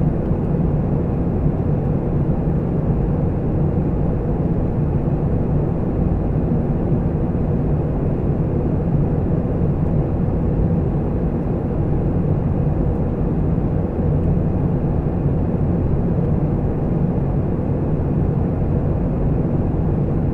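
Jet airliner flying high overhead: a steady, low rumble of distant jet engines.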